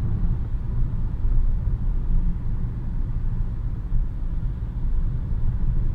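Car running with a steady low rumble.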